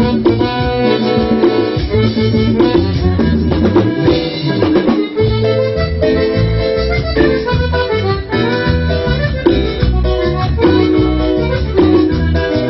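Instrumental break of a cumbia song played by a band: a melody line carried over a steady bass and drum beat, with no singing.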